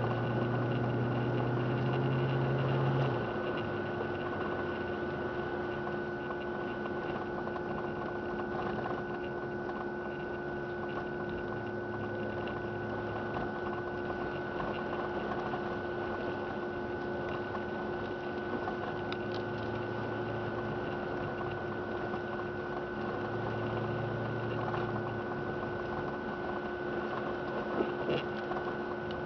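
Vehicle cabin noise while driving on a snowy road: a steady engine hum and tyre noise, with a constant thin whine over it. The engine note is stronger for the first three seconds, then settles.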